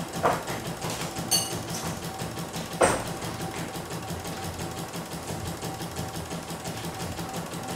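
CNY E900 computerized embroidery machine running, its needle stitching rapidly and steadily while the hoop carriage moves the fabric. Three sharp clicks in the first three seconds, the loudest just before the three-second mark.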